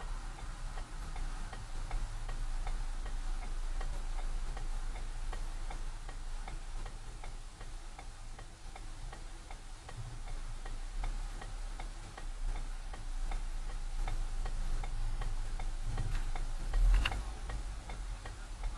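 Car's turn-signal indicator ticking steadily inside the cabin, over the low hum of the engine, with one brief louder noise near the end.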